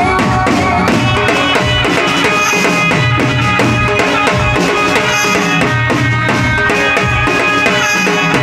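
Navratri garba folk music: an instrumental passage with a steady drum beat and held melody notes. A sung line trails off just at the start.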